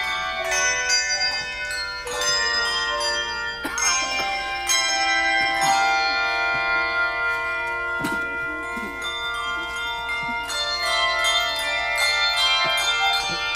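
Handbell choir playing: many handbells struck together in chords, their tones ringing on and overlapping as new notes sound.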